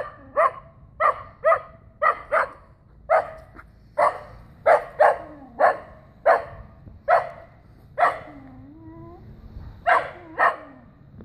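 Dachshund barking up at a cat perched out of its reach: about sixteen sharp barks, often in quick pairs, with a short whine in a pause near the end before two more barks.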